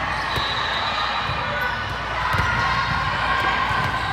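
A ball thumping a few times on a gym floor, over steady crowd chatter.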